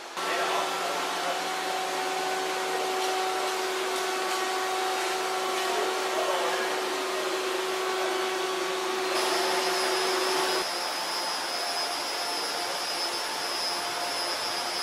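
Steady whirring hum of workshop machinery, with a few faint clicks. About two-thirds of the way through, the hum's tone changes and a thin high whine comes in.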